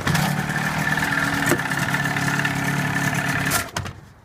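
Electric starter on a Johnson 25 hp outboard cranking the engine with a steady, even pitch for about three and a half seconds, then stopping suddenly. The engine does not catch, so choke is used next.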